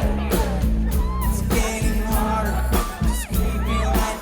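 Live pop-rock band playing loudly through a PA: heavy bass and a drum beat under a lead vocal melody.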